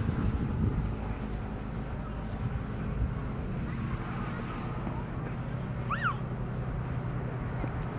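Distant, steady low rumble of the Cessna Citation Sovereign+'s twin turbofan engines as the business jet rolls out along the runway after touchdown. About six seconds in, a short chirped call rises and falls.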